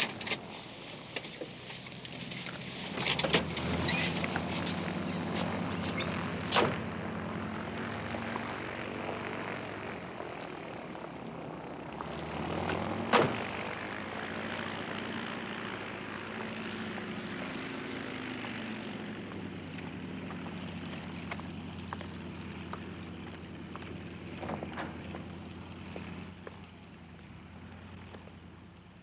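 Light propeller aircraft engine running steadily, its pitch shifting up and down a little, with several sharp knocks cutting across it, the loudest about 13 seconds in.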